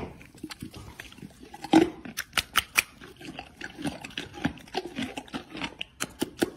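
Horse crunching and chewing a carrot, with wet lip-smacking: a quick, irregular run of crisp crunches.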